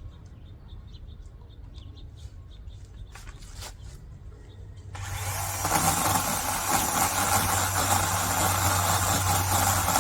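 Chainsaw running at a low steady hum with a couple of faint knocks, then opened up to full speed about halfway through and held there, a loud steady whining buzz.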